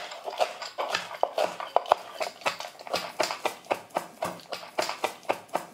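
Kitchen knife chopping fresh basil finely on a wooden cutting board: a quick, irregular run of blade knocks on the wood, about four a second.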